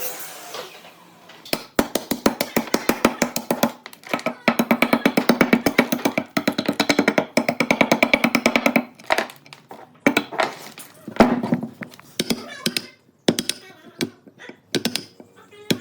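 Music played on a rapidly plucked string instrument, a fast even run of picked notes that thins out about nine seconds in to scattered sharp plucks.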